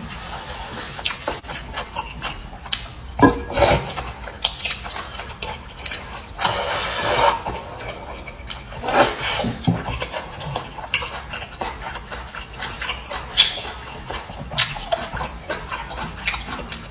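Close-miked eating sounds: irregular chewing with many short mouth clicks, and a longer noisy stretch about six and a half seconds in.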